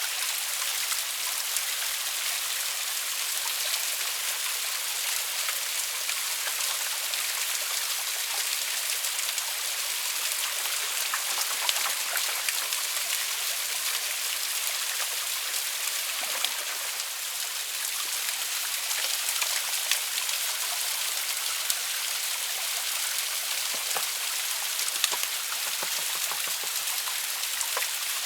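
Small waterfall splashing over rocks and moss: a steady rush of falling water, with a few sharp ticks here and there.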